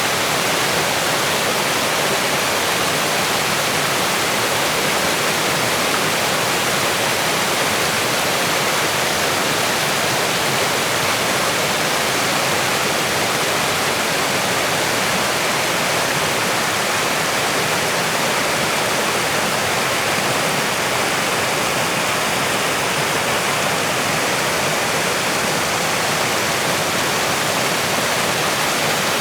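Waterfall rushing, a loud steady roar of falling water that does not change.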